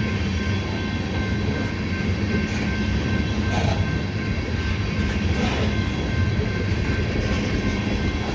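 Freight train of ethanol tank cars rolling past: a steady rumble of wheels on rail, with a few faint, steady ringing tones above it.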